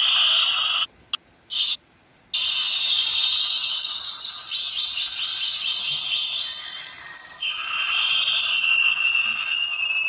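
A flock of Gouldian finches chattering: many overlapping high, thin chirps and calls. The sound cuts out briefly about a second in, then returns.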